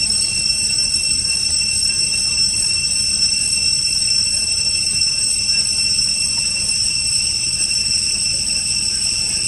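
Cicadas droning steadily in several high, unchanging pitches, with a low rumble underneath.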